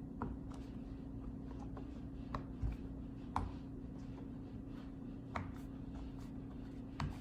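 Silicone pop-it fidget toy having its bubbles pressed one by one: soft, irregular pops and clicks, a dozen or so, over a steady low hum.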